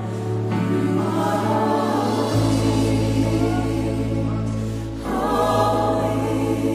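Background music: a choir singing long held notes over a steady low bass note.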